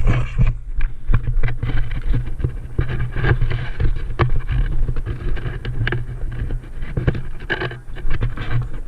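Heavy low rumble and rustling from a camera carried by a moving player, with irregular sharp clicks and knocks throughout.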